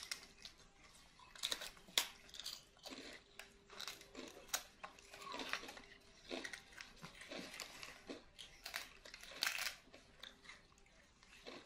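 Young macaques biting into and chewing crisp white wafers: an irregular run of sharp crunches and crackles.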